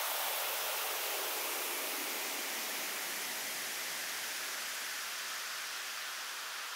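Steady white-noise hiss fading slowly, with no beat or melody: the noise-wash outro of an electronic music track.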